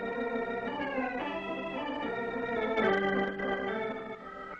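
Organ music soundtrack: held notes and chords moving from one pitch to the next, with a short noisy accent about three seconds in.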